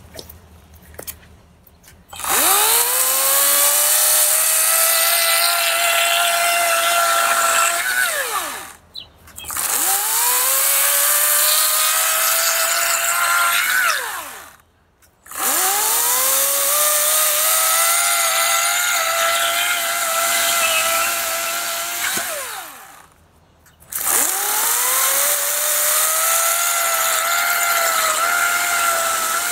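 EGO 56-volt cordless 14-inch electric chainsaw cutting a log, run four times: each run starts with a rising whine as the motor spins up, holds steady through the cut, then winds down when the trigger is released. A few light clicks come before the first run.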